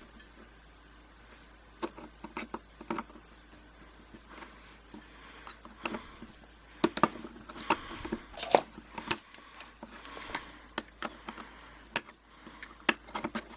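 Pliers working the steel retaining clip off a euro cylinder lock: irregular small metallic clicks and scrapes, sparse at first and busier and sharper in the second half.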